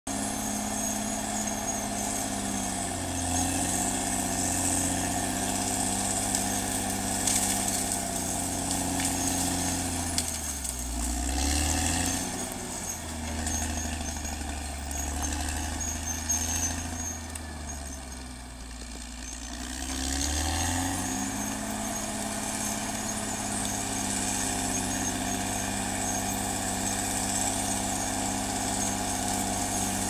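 Caterpillar D6R XL bulldozer's diesel engine running steadily under load. Its pitch drops about ten seconds in, runs lower and quieter for several seconds, then climbs back up about twenty seconds in.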